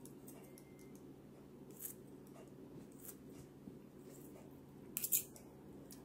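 Kitchen scissors snipping through chunks of grilled beef on a plate, a few short sharp cuts with the loudest near the end, over a low steady hum.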